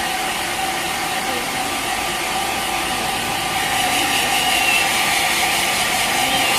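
Handheld hair dryer running steadily, a constant motor whine over rushing air, getting a little louder about four seconds in.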